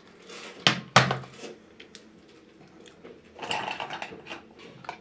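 Makeup items being handled on a table: two sharp clicks close together, each with a short ring after it, just under a second in, then a longer clatter and rustle of things being moved around at about three and a half seconds.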